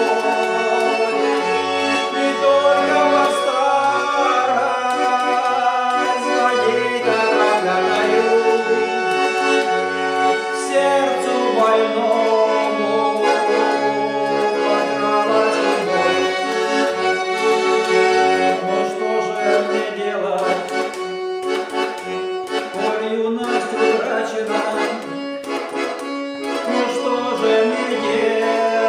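Accordion playing an instrumental melody over short, separate low bass notes.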